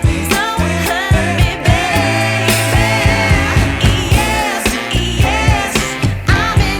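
A song with a singer's voice gliding in pitch over a regular, heavy drum beat: the music that accompanies the fountain show.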